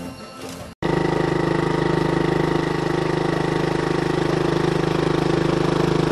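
Boat motor running steadily with an even, rapid pulsing. It cuts in abruptly just under a second in, after a moment of quieter sound.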